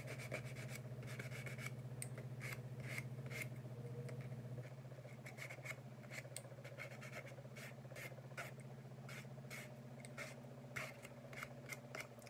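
Sandpaper rubbed over a small plastic tumbler in a run of short, irregular strokes, scuffing the surface so that epoxy will adhere. A steady low hum runs underneath.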